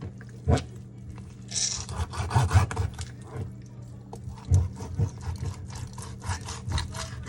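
A kitchen knife sawing and scraping through a raw whole chicken on a plastic cutting sheet, in many short strokes with several sharp knocks.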